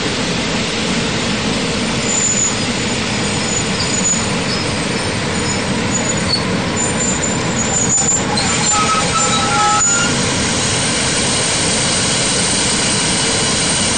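EP08 electric locomotive rolling slowly past at close range, a steady loud rumbling noise. Thin high squeals come and go from about two to eight seconds in, and shorter, lower squeals follow around ten seconds.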